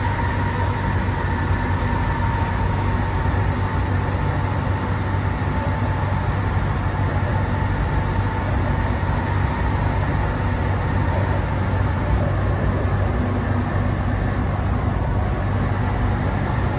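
Inside the passenger car of an MTR Kwun Tong Line C-train running along the line: a steady low rumble of wheels on rail and running gear, with a faint steady whine above it.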